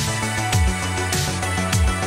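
Electronic background music with a steady beat of deep kick drums and sharp percussion over held synth tones.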